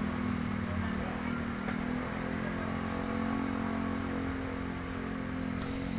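A small engine running steadily, its pitch shifting slightly about two seconds in.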